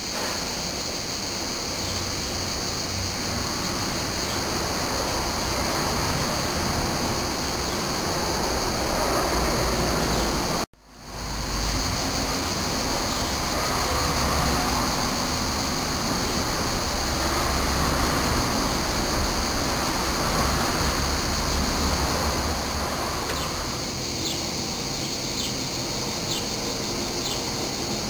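Steady background hiss with a low rumble, cutting out for a moment about ten seconds in; over the last few seconds, faint short high chirps repeat about once a second.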